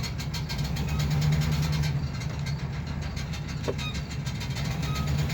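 Ford E350 van's engine running steadily at a low, even speed.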